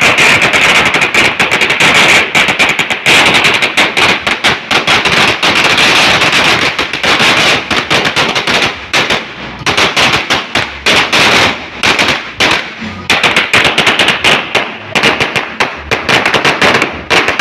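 A 1,000-round firecracker string going off: a rapid, almost unbroken crackle of loud bangs, like machine-gun fire. It thins briefly about nine seconds in and again near thirteen seconds, then picks up again.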